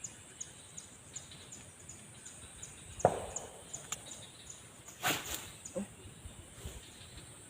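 Insects calling in the swamp: a high chirp repeating about three times a second over a steady high hum. A sharp knock comes about three seconds in and a short rushing burst about five seconds in.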